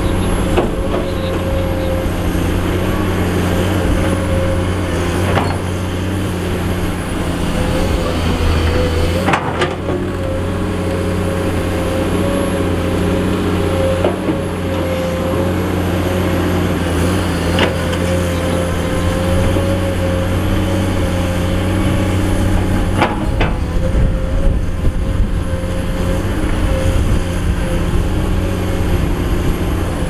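Komatsu PC210 excavator's six-cylinder diesel engine running steadily at working revs, with a high whine above it and a few sharp knocks spaced several seconds apart.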